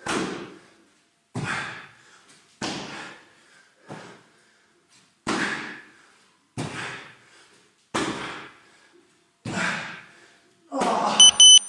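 Spider mountain climbers on a rubber gym floor: a thump of effort about every second and a half. Near the end an interval timer gives a few short, loud, high beeps marking the end of the work interval.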